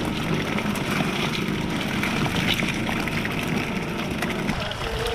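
A fishing boat's engine running steadily, with water and scattered light clicks over it. The rumble dips briefly near the end.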